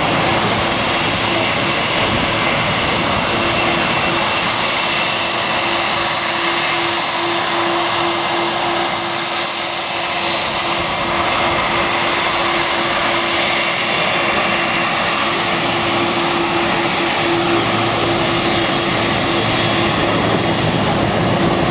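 Boeing 747's four turbofan engines running as the jet turns onto the runway and lines up: a loud, steady rushing noise with a high-pitched whine over it.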